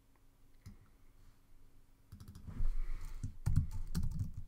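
Typing on a computer keyboard: a couple of faint clicks, then from about two seconds in a quick run of keystrokes.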